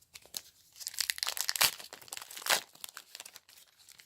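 Foil Pokémon booster pack wrappers crinkling as they are handled and opened, an irregular crackle with its loudest crinkles in the middle.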